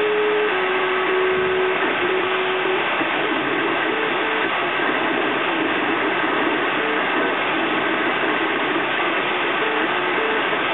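Filament 3D printer printing: its stepper motors whine in short steady tones that jump in pitch as the print head changes moves, over a constant whirring hiss from the machine and its fan.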